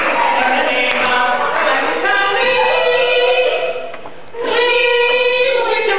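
Men singing together unaccompanied, holding long notes, with a short break a little after halfway.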